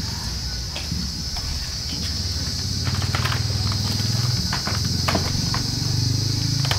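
Footsteps and a few knocks of a plastic stool being picked up and handled, over a steady high buzz of insects and a low steady hum.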